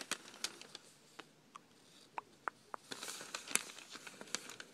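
Long paper store receipt rustling and crinkling faintly as it is handled and pulled through the fingers, with scattered light ticks.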